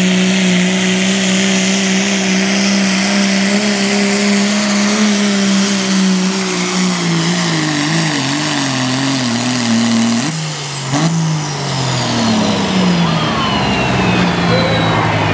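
Diesel pickup truck engine at full throttle pulling a weight-transfer sled, holding a steady pitch, then wavering and sagging as the truck bogs down. About ten seconds in it is let off, and the engine note sinks steadily toward idle while a high whine falls in pitch.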